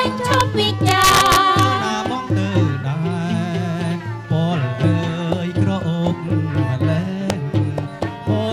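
Khmer wedding-music (phleng kar) ensemble playing a song: a plucked long-necked lute, two-string fiddles, a bamboo flute and a hand drum, with singing over them.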